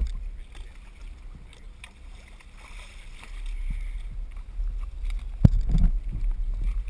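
Water sloshing against a fishing boat's hull over a low, steady rumble, with a sharp knock about five and a half seconds in and a few lighter knocks just after.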